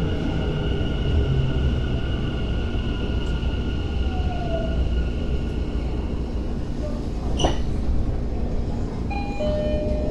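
Tokyo Metro 10000 series subway train braking to a stop at a platform. Its VVVF inverter and motor whine is heard as steady high tones that fade as it slows, with a sharp clack about 7.5 seconds in. Near the end there are short steady chime tones as the doors open.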